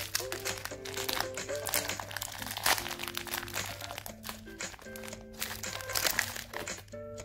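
Foil-lined plastic wrapper of an Oreo cookie pack crinkling and crackling as it is torn and peeled open by hand, loudest at about three seconds in and again near six seconds, over background music with a simple tune.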